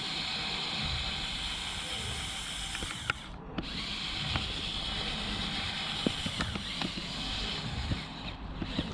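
Lego RC crawler's small electric motors whining as it drives, stopping briefly about three seconds in and again near the end, with scattered light clicks and knocks.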